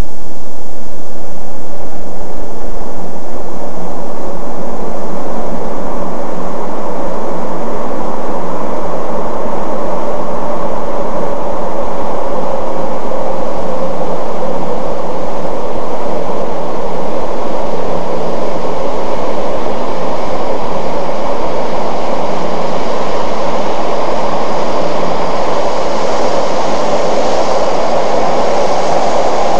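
200 Series Shinkansen train running at high speed: a steady, loud rumble and rush of noise with a low hum underneath, the high hiss growing a little toward the end.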